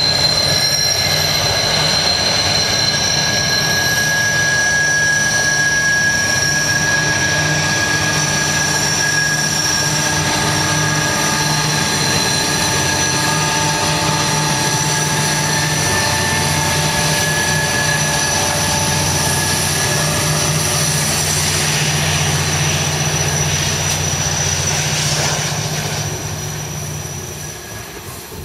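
Three Pacific National 82 class diesel-electric locomotives, each with a two-stroke EMD V12 engine, hauling a loaded coal train up a grade under heavy load. The engines drone steadily, with several steady high-pitched whines above them. The sound eases off near the end as the locomotives pass and the loaded coal wagons roll by.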